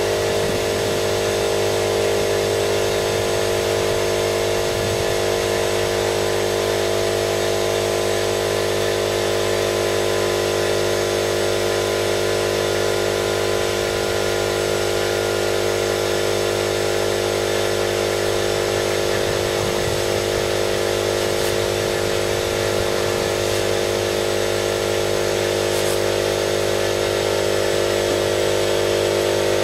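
Air compressor running steadily, supplying air for a paint spray gun: an unchanging mechanical hum.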